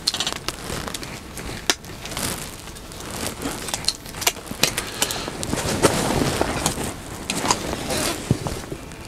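Scattered light clicks, taps and rustling of hands-on food preparation, with a denser stretch of rustling about five to seven seconds in.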